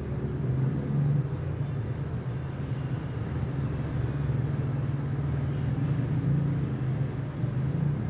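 Panasonic F-EY1511 ceiling fan running: a steady low hum with a rushing noise over it.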